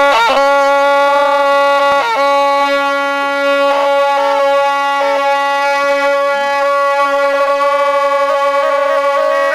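Two gyaling, Tibetan double-reed oboes, playing together in the Drikung Kagyu monastic style. They come in suddenly on one long held note, broken by quick downward ornaments every second or two.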